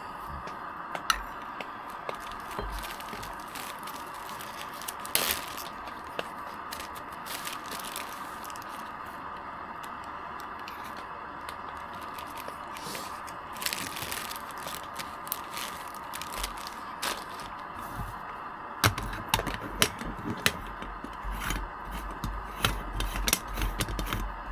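Scrapes, tearing and sharp cracks of hands working fire-starting material and camp gear, over a steady hiss. The clicks and knocks come closer together, with low bumps, in the last several seconds.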